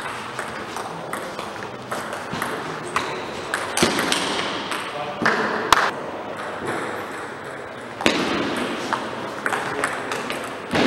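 Table tennis rally: the ball clicking sharply off the bats and the table again and again, with voices in the hall.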